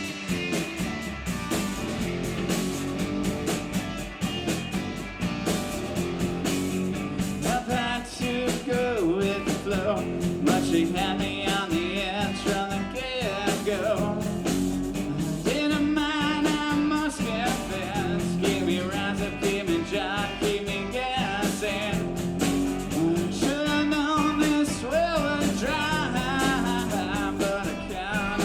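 A rock band playing live, with drums, bass and guitar and a lead melody line that wavers and bends in pitch over the top.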